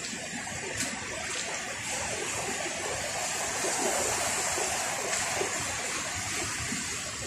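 Sea surf washing in over a pebble and sand shore: a steady rush of breaking waves that swells a little around the middle, with a couple of light clicks near the start.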